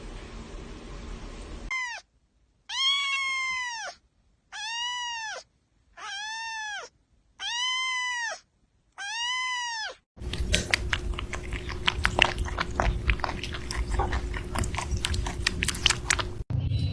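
A kitten meowing six times in a row, one about every 1.3 seconds, each call rising and then falling in pitch; the first call is cut short. After the meows comes a stretch of fast, irregular clicks over a faint steady hum.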